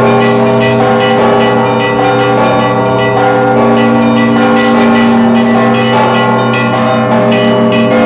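Church bells rung by an automatic electromechanical bell-ringer, with electric actuators pulling the clapper ropes and no human hands. A continuous peal of many bells: the smaller bells strike several times a second over the steady hum of the larger bells.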